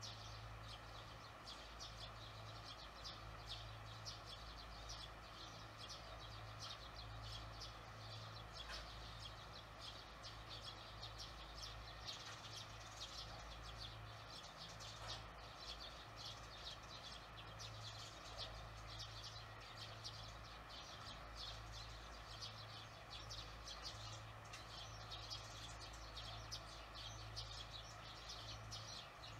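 Swallows twittering at the nest: a dense, continuous run of short high chirps over a low steady hum.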